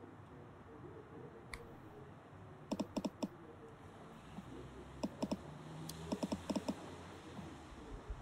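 Smartphone on-screen keyboard tap clicks as a text message is typed: three quick runs of sharp clicks, roughly four, three and six taps, over a low steady room hum.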